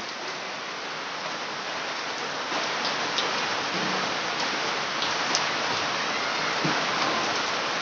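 Steady rain falling on a waterlogged, puddled yard, an even hiss that grows a little louder over the first couple of seconds.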